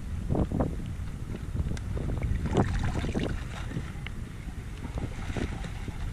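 Shallow floodwater splashing in short, irregular bursts over a steady low rumble of wind on the microphone.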